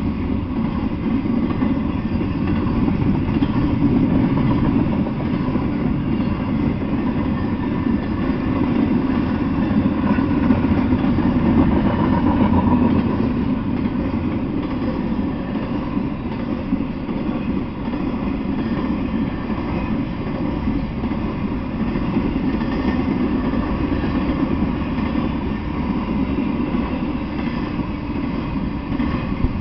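Freight train rolling past, a steady loud rumble of rail cars.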